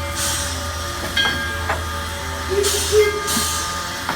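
Standing steam locomotive heard from the cab: a steady low hum with short bursts of hissing steam and a couple of sharp metallic knocks.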